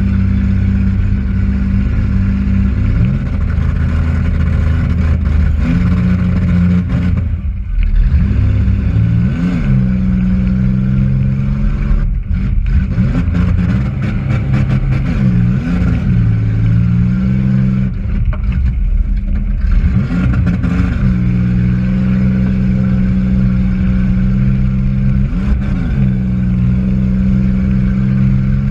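Demolition derby car's engine heard from inside the car, running loud, with repeated revs rising and falling every few seconds.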